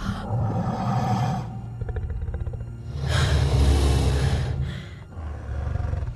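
A dragon's deep rumbling growl with a louder, breathy growl swelling about three seconds in and fading out about four and a half seconds in, over film music.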